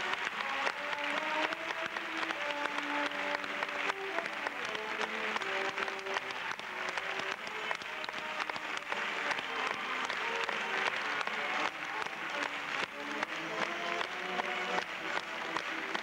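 Music for a stage dance number with a melody of held notes, and audience applause over it.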